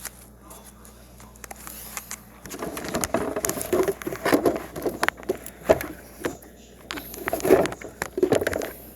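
Irregular rustling, knocking and clicking, starting about two and a half seconds in and stopping just before the end.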